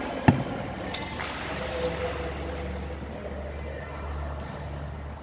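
Badminton rally in a large sports hall: a loud, sharp racket hit on the shuttlecock just after the start, ringing briefly in the hall, then two lighter knocks about a second in, over a steady low hum.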